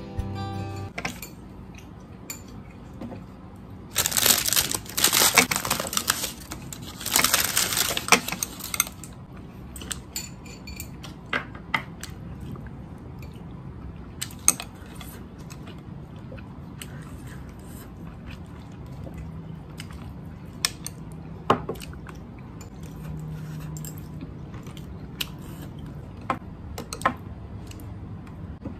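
Stainless-steel chopsticks and spoon clicking and scraping on a ceramic plate while eating, in scattered sharp clinks. About four seconds in comes a few seconds of louder, dense rasping noise.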